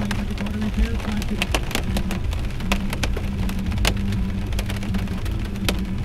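Rain striking a moving car's windshield and roof, heard from inside the cabin: scattered sharp ticks over the steady drone of the car at highway speed.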